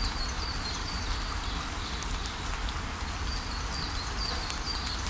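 Steady rain-like hiss with scattered sharp ticks like drops, over a low rumble. Runs of short high chirps repeat through it, about two a second, at the start and again a little past the middle.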